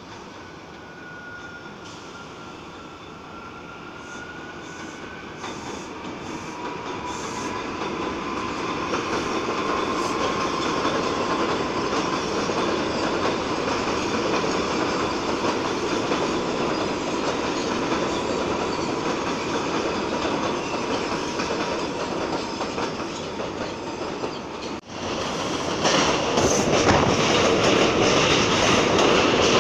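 Subway train approaching and running past: a steady rumble of wheels on rails that grows louder over the first several seconds, with a faint high whine. About 25 s in, the sound breaks off and a louder train at the platform edge follows, with clicking.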